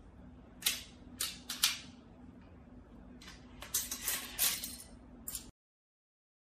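Sharp clicks and clacks of metal screws, a screwdriver and hard plastic and metal gun parts being handled and set down on a tiled floor, in two quick groups over a low steady hum. The sound cuts off suddenly near the end.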